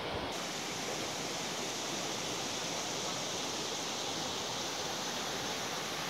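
Steady rush of a shallow stream flowing over stones.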